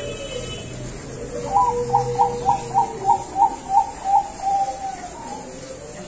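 Zebra dove (perkutut bangkok) cooing: a quick run of about nine clipped notes, roughly three a second, ending in a longer drawn-out note.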